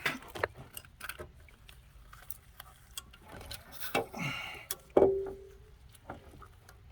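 Scattered light metal clicks and knocks as a cylinder head is worked into place on the engine block. About five seconds in comes a sharper metallic clank that rings briefly.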